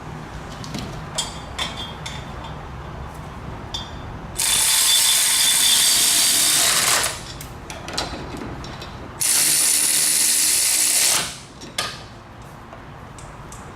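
Pneumatic tool running in two bursts of about two and a half and two seconds, with a hissing, whining sound, and a few light ratchet clicks between them, as fasteners are driven on the truck's exhaust manifolds.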